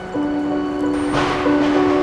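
Background music of long held notes that change in steps, with a brief swell of hiss about a second in.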